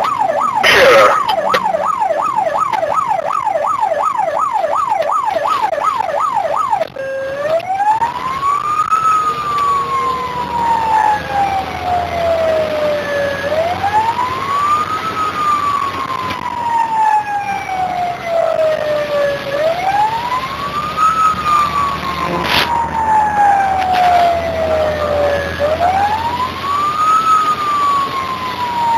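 Fire engine siren heard from inside the cab of a Jelcz GCBA 5/24 tender under way. A fast yelp of about four sweeps a second switches, about seven seconds in, to a slow wail that rises quickly and falls slowly, once every six seconds or so. Under it runs the truck's engine, and there is one sharp knock late on.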